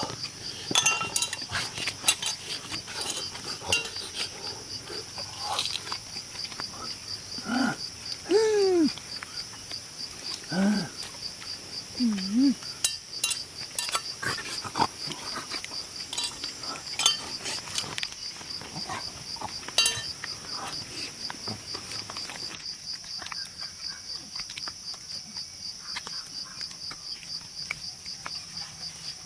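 Crickets chirring steadily in a high, rapid pulse, with scattered clicks and knocks and a few short, low gliding grunts about eight to twelve seconds in.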